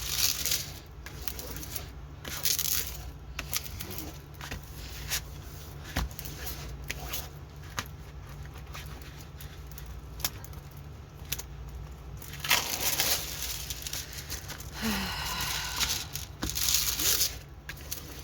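Plastic packaging and a diamond painting kit being handled: crinkling and rustling with brief tearing sounds and scattered clicks, loudest about twelve and sixteen seconds in, over a steady low hum.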